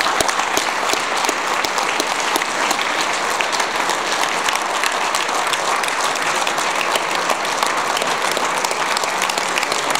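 Banquet audience applauding: dense, steady clapping from a large roomful of people.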